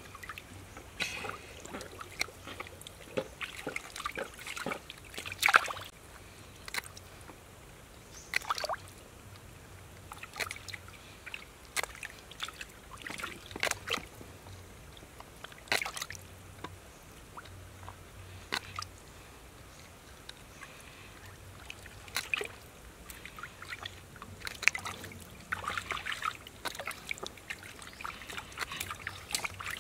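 Shallow water sloshing, trickling and dripping as hands rinse and handle a snake in it, with scattered sharp clicks throughout and busier splashing about a second in and again near the end.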